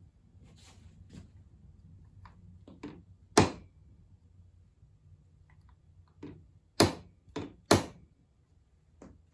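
Small hammer tapping a wooden key-spacing tool held against grand piano keys to nudge them square. It gives a scattering of sharp, separate taps: the loudest about three seconds in, then three loud ones close together near the end, with softer ones between.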